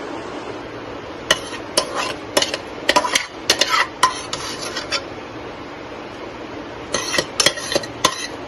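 Steel serving spoon scraping and clinking against a stainless-steel pressure-cooker pot and a small steel karahi dish as potato curry is ladled across. The knocks and scrapes come in two bunches: a run of them from about a second in lasting some four seconds, and a shorter run near the end.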